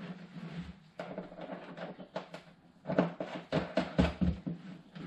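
Light clicks and knocks of small fittings being handled and fitted to a pannier panel on a workbench, clustered more densely a few seconds in.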